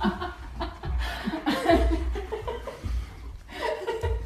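A person laughing in short chuckles, with a little speech mixed in.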